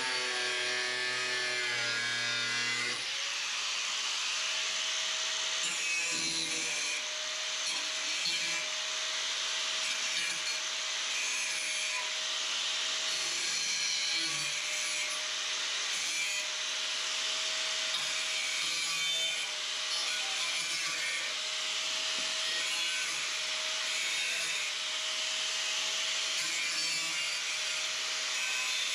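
Electric power tool cutting sheet steel: a steady motor whine under a continuous harsh, high grinding hiss, with small changes in pitch and level as the cut goes on.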